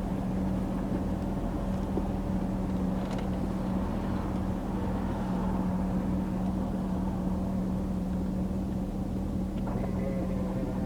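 Car engine running, heard from inside the cabin as a steady, even hum with a low rumble.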